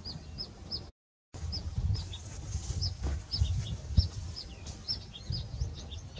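Small birds chirping over and over in short, high, downward-gliding chirps above a low rumble. A few sharp knocks come in the middle, and the sound cuts out completely for a moment about a second in.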